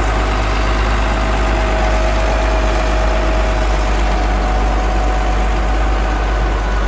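Motor grader's diesel engine running steadily at a constant speed.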